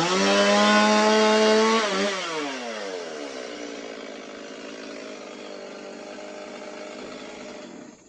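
Chainsaw revved hard to full throttle and held for about two seconds, then dropping back to a lower idle that runs on until the engine cuts out near the end.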